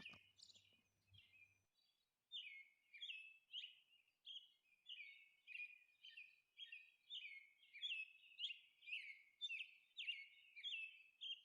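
Faint bird chirping: a run of short chirps, each falling slightly in pitch, repeated about twice a second and starting about two seconds in.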